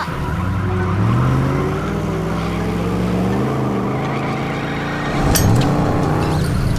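Cartoon truck engine sound effects revving and straining, rising in pitch about a second in and then holding, with a sudden bang about five seconds in.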